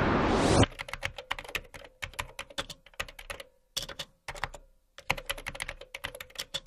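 A loud rising rush of noise cuts off sharply well under a second in. Then comes a keyboard-typing sound effect: rapid clicks in quick runs with a couple of short pauses, keeping time with on-screen text being typed out line by line.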